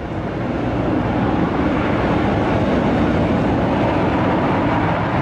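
Loud, steady rumble of a Boeing 737 jet airliner on the runway, its engines and rolling noise building over the first second and then holding level.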